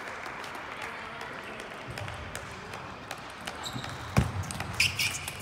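Table tennis ball clicking off the bats and table in a rally, sharp knocks that come more often over the last couple of seconds, with one heavier thump about four seconds in. Under it runs the steady background noise of a big hall with other tables in play.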